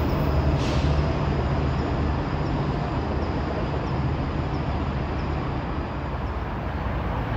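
Metrolink commuter train pulling away: a steady low rumble that slowly fades, under an even hiss of traffic.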